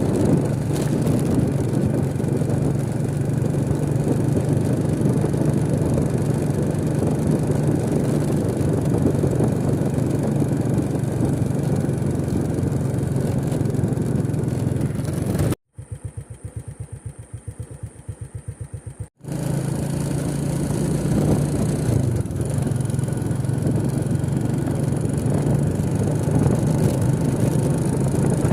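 Motorcycle engine running steadily while riding, with wind rushing on the microphone. About halfway through it briefly cuts to a much quieter stretch with a rapid low pulsing, then the riding sound returns.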